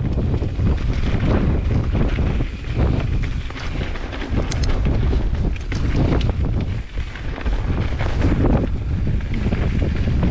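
Strong wind buffeting an action camera's microphone, a heavy low rumble that rises and falls in gusts, with a few scattered clicks.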